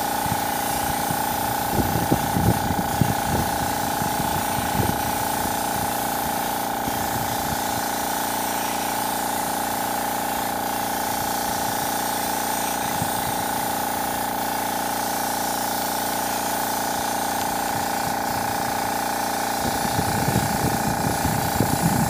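Cup-type air spray gun hissing steadily as it sprays a first coat of thinned synthetic enamel onto a metal gate, with a steady hum beneath. A few low, irregular bumps come about two seconds in and again near the end.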